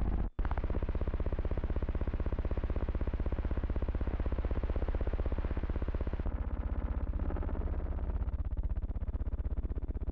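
A distorted, buzzing electronic drone with a steady low hum. It cuts out for a moment just after the start and thins out about six seconds in.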